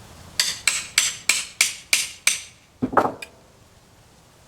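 Hammer striking bent nails in a wooden panel to straighten them: seven quick, sharp metal-on-metal taps, about three a second, then one duller, heavier knock.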